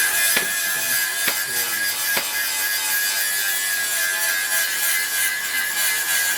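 Electric grinder running steadily against the steel of a brake disc, a constant high whine over a harsh hiss, with a few faint knocks in the first couple of seconds.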